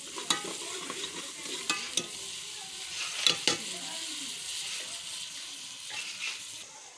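Onion and tomato masala sizzling in hot oil in a metal pot, stirred with a metal spoon that clinks sharply against the pot several times.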